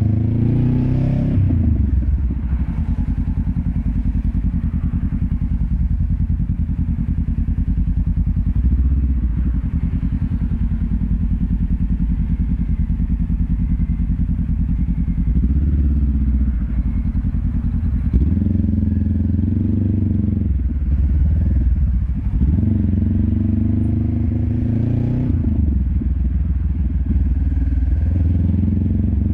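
Honda CB500X parallel-twin engine heard close to its LeoVince LV10 slip-on exhaust, running at low revs as the bike rides slowly. It picks up revs briefly about a second in, then again several times in the second half.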